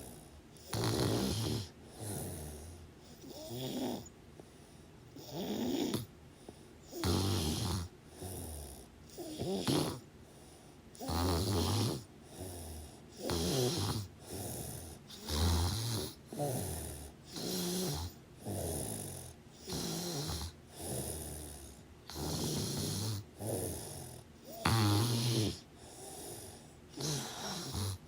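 Snoring in a steady rhythm, one snore roughly every one to two seconds, each a low buzz with a breathy hiss.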